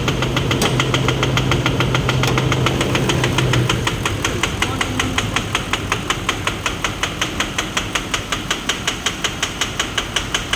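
Toyota Land Cruiser LC200's 4.5-litre V8 turbo-diesel running with a steady, rhythmic knock, about four or five a second, that stands out more clearly after a steady hum drops away about four seconds in. It is the sign of an engine fault, a bad engine in the owner's words.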